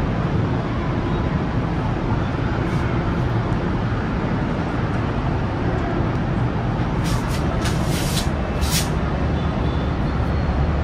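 Steady rumble of a running vehicle with road and traffic noise, broken by a few short high hisses about seven to nine seconds in.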